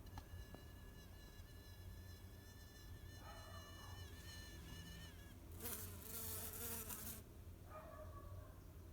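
A flying insect making a high, steady, piercing whine, like a sonic pest deterrent. It lasts about five seconds and dips in pitch just before it stops. A loud rushing noise follows for about a second and a half.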